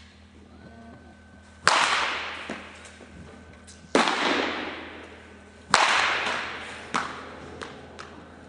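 Baseball bat striking pitched balls: three sharp cracks about two seconds apart, each echoing for about a second through a large indoor batting facility, with a few lighter ticks in between.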